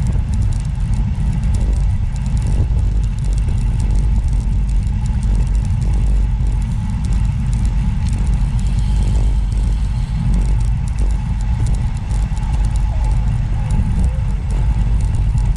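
Steady low rumble of a vehicle in motion, with no pauses or changes.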